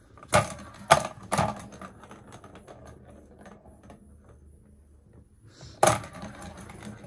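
Sharp plastic clacks and knocks from a ball-in-track cat toy being handled and played with: three in quick succession in the first second and a half, then a quieter stretch, then one more near the end.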